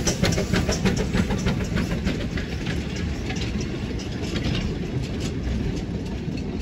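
Narrow-gauge train of coaches and wagons rolling past, its wheels clicking regularly over the rail joints over a low rumble. The clicks thin out and the sound eases as the rear of the train goes by.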